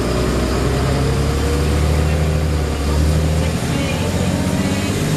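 Volvo B7LA bus's six-cylinder diesel engine running under way, heard from inside the passenger saloon: a steady low drone whose pitch steps up and down a couple of times, over constant road noise.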